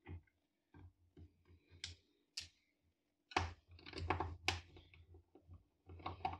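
Small screws and a screwdriver clicking and tapping against a TV's plastic back cover as screws are taken out and set down: scattered light clicks, then a quick run of louder sharp clicks about halfway through and another few near the end.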